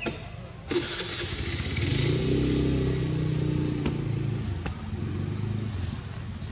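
A motor vehicle engine passing by, its hum building about two seconds in and fading away over the following seconds, over a steady hiss.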